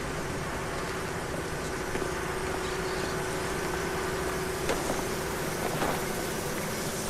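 Steady drone of factory machinery with a held hum under it that fades about two-thirds of the way through, and a couple of light knocks near the end.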